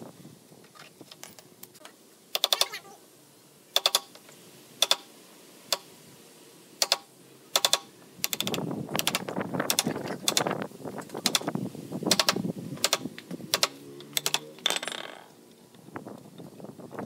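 About half a dozen sharp clicks a second or so apart, then about six seconds of rapid scraping and scratching from a hand chisel paring wood around a bolt hole in a pine frame rail.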